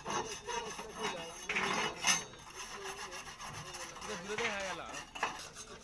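Shuttering panels scraping and rubbing as a worker slides and handles them on a stack, with a couple of sharp knocks, one about two seconds in and one near the end.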